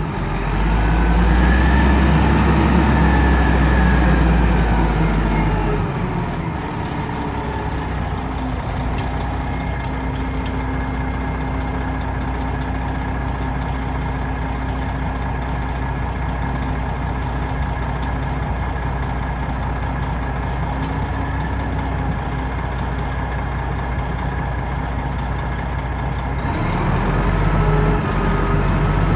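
Heavy diesel engine of tree-removal equipment running. It works harder with a rising and falling whine for the first few seconds, settles to a steady idle, and picks up again near the end.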